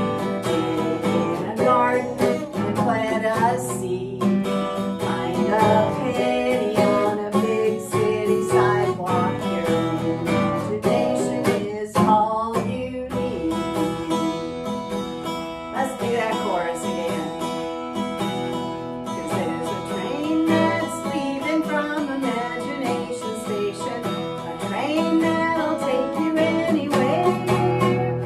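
Acoustic guitar strummed in a steady rhythm while a woman sings along.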